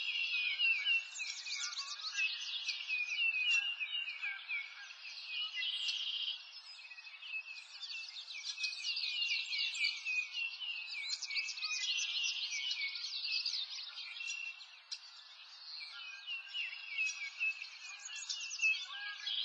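A dense chorus of small birds chirping and twittering, many quick overlapping calls at once, over a faint steady hiss. It dips briefly a few times, around six and fifteen seconds in.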